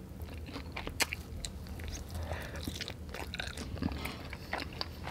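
A person biting and chewing a sauced chicken wing, with scattered small wet clicks and crunches and one sharper click about a second in.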